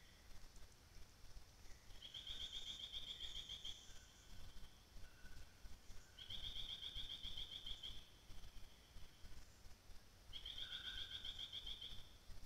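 A bird repeats a fast, high trill three times, about every four seconds, each trill lasting under two seconds, with fainter lower notes between them.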